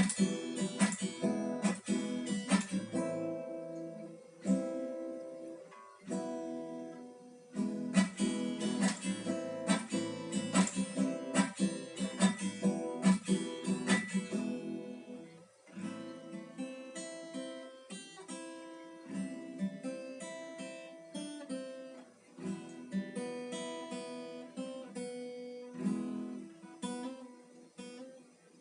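Acoustic guitar played solo: strummed chords, becoming sparser and quieter about halfway through.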